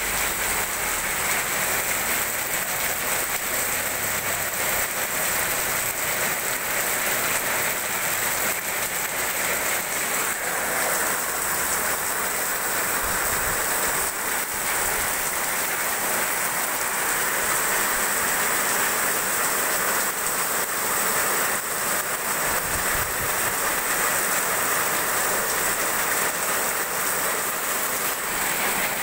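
Heavy rain falling steadily, an even hiss of the downpour on the street and nearby surfaces.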